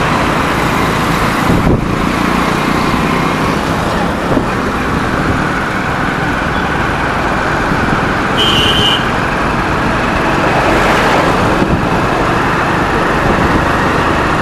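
Steady road traffic noise from motor vehicles, with a brief high tone about eight and a half seconds in.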